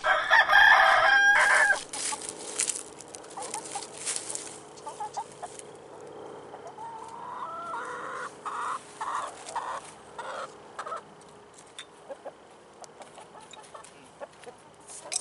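A chicken calling: one loud, drawn-out call for nearly two seconds, then scattered quieter clucks and calls in the middle, among light rustles and clicks.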